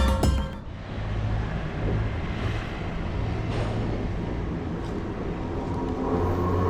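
Background music cuts off about half a second in, giving way to the steady low rumble and hiss of a running vehicle.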